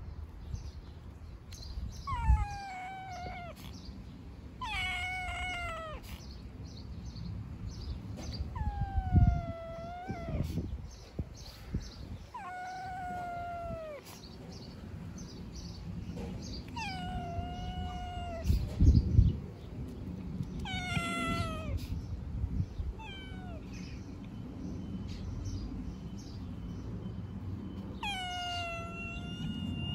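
A cat meowing over and over: about eight drawn-out meows, each falling in pitch, a few seconds apart. A few low thumps come between them.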